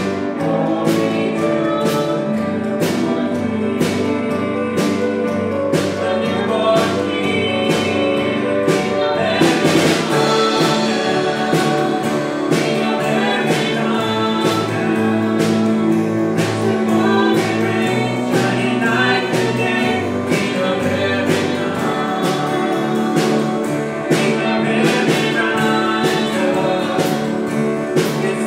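Worship music: singing over instrumental backing with a steady beat.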